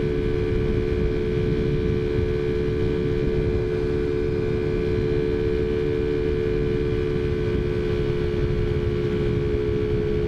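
Taotao Zummer scooter's small four-stroke engine running at steady cruising revs, giving an even drone with no change in pitch. Wind rumbles on the microphone beneath it.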